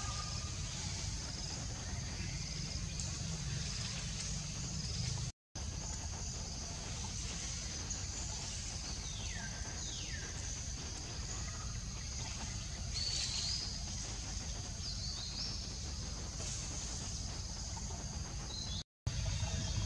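Outdoor ambience: a steady high buzz over a low rumble, with a few short falling calls about nine to ten seconds in and brief chirps around thirteen and fifteen seconds. The sound drops out twice for a moment.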